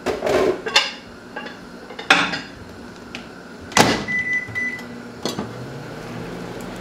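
Knocks as a dish is set inside a Samsung over-the-range microwave, the door shutting with a sharp clunk, a few short keypad beeps, then the oven starting and running with a steady low hum.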